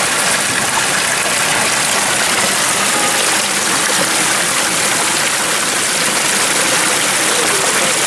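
Water pouring from stone mask spouts and thin cascades into a stone channel: a steady, even splashing rush.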